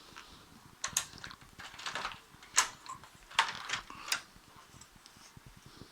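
Sharp plastic clicks and knocks as a colour laser printer's toner cartridge and drum unit are handled, several in a row, the loudest near the middle.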